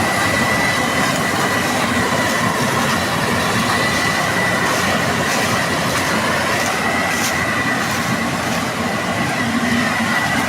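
Combine harvester running steadily at work: a constant loud mechanical din with a thin high whine held throughout and faint clicking.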